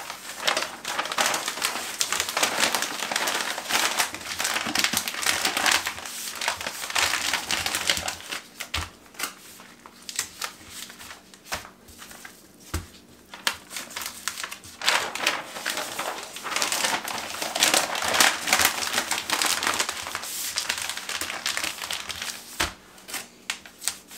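Wax-lined freezer paper rustling and crinkling as it is folded and rolled tightly around plastic-wrapped packages of meat, with a few low knocks as a package is pressed or set down on the countertop.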